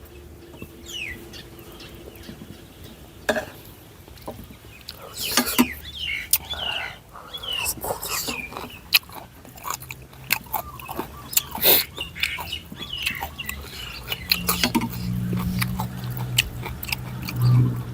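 Close-up eating sounds of a man chewing noodles, with many small clicks and smacks. Birds chirp in the background, and a steady low hum comes in about fourteen seconds in.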